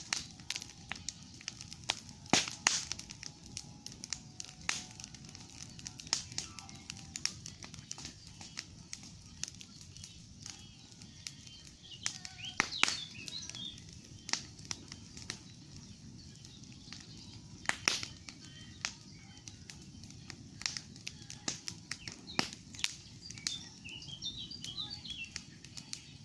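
Campfire crackling, with irregular sharp pops and snaps over a low steady hiss. A few faint bird chirps come about halfway through and near the end.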